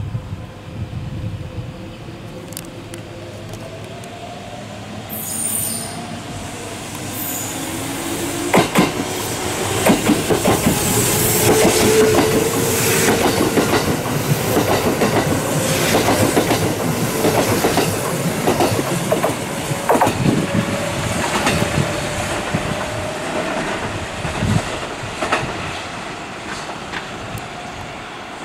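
Kintetsu electric train running past at close range, its wheels clacking over rail joints and a whine slowly rising in pitch underneath. The train is loudest about ten to twenty seconds in, then eases off.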